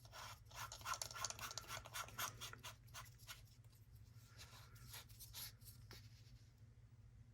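Faint scraping and rubbing of a STARESSO portable espresso maker's threaded top being screwed on: a quick run of short scratchy strokes over the first three seconds or so, then a few scattered ones.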